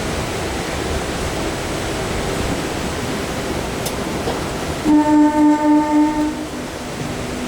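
Steady rushing noise. About five seconds in, a train horn sounds in a quick pulsing series of about six blasts, lasting about a second and a half, and a fainter lower tone lingers after it.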